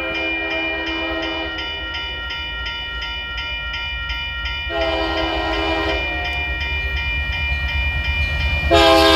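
An approaching diesel freight locomotive sounds its multi-chime horn for the grade crossing in long blasts: one fades out about a second and a half in, another comes near the middle, and a louder one starts just before the end as the train closes in. Under the horn, the locomotive's low rumble grows, and a crossing bell rings at about three strikes a second.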